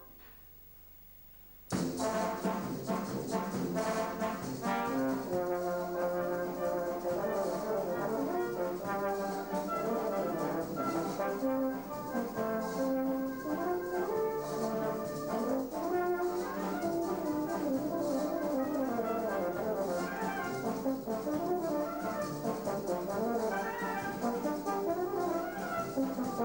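Brass band accompanying a euphonium solo, with many brass parts moving together. After about two seconds of near silence, the music cuts in suddenly.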